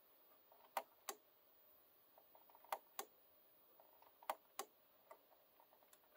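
Three pairs of sharp clicks over near silence, the two clicks of each pair about a third of a second apart, with a few fainter clicks between.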